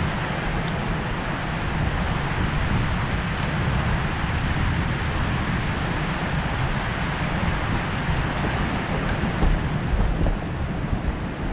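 Wind buffeting the microphone: a steady rushing noise, heaviest in the low rumble.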